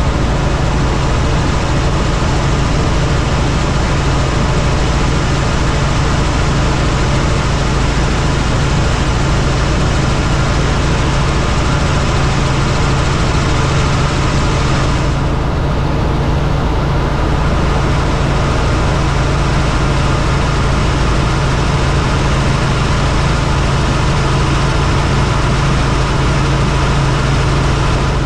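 Helicopter in flight: steady loud engine and rotor noise, a low hum under a dense hiss. The hiss dulls briefly about halfway through.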